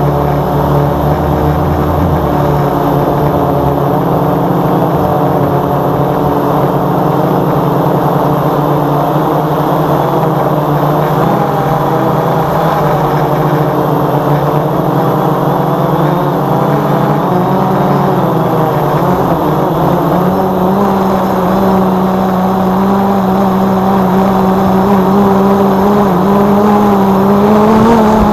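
A multirotor drone's propellers and motors whining steadily in flight, the pitch wavering slightly, getting a little louder and higher near the end.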